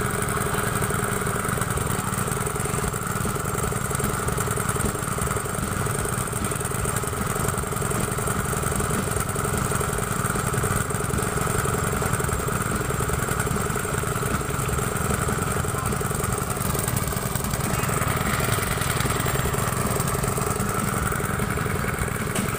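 An engine idling steadily, with only a slight change in pitch about three quarters of the way through.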